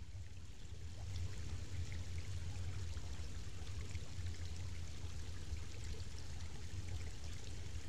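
Shallow, rocky river water flowing and trickling steadily, with a low rumble underneath.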